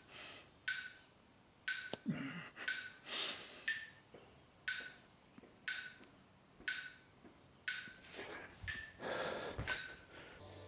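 A person breathing hard during exercise, in short, sharp breaths that come roughly once a second.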